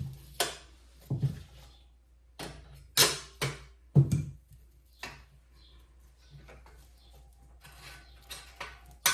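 Irregular metal clicks and clinks of hand tools working the bolt and nut on a steel brake pedal assembly, about a dozen separate knocks with short pauses between them.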